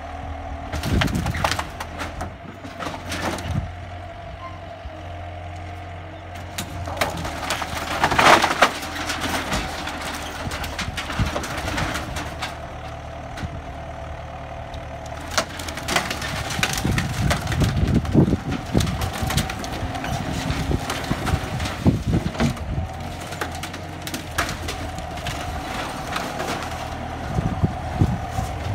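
Skid steer loader's engine running steadily while it demolishes a sun room, with repeated cracks and crunches of splintering wood and buckling metal roofing. The loudest crash comes about eight seconds in.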